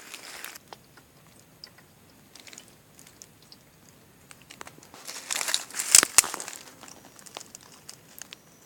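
Dry leaves and twigs rustling and crackling, densest about five to six seconds in, with two sharp snaps near six seconds.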